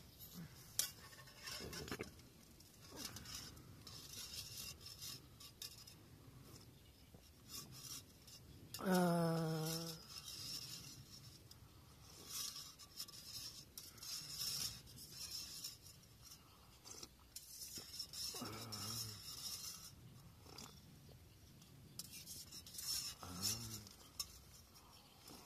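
Eating from a metal camping cup: a utensil clinks and scrapes against the metal over and over, with mouth and sipping sounds. About nine seconds in there is one loud voiced sound about a second long, and two fainter low voiced sounds come later.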